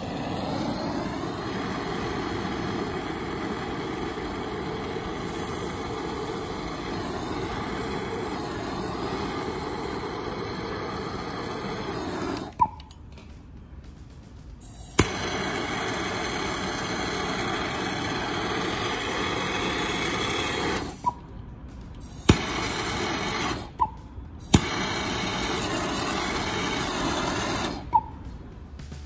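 Handheld gas blowtorch flame running with a steady rushing hiss in three long runs, each cut off with a sharp click, with a couple of single clicks between runs: the torch is heating a radiator's top tank to solder its end straps back on.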